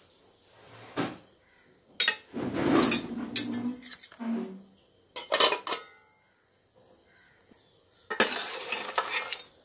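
Steel ladle and spoon clinking and scraping against stainless steel pots and bowls, in several separate bouts of clatter with short quiet gaps between.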